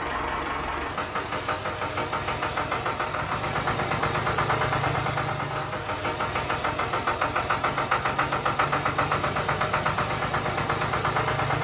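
A small engine running steadily with an even, rhythmic knocking pulse several times a second.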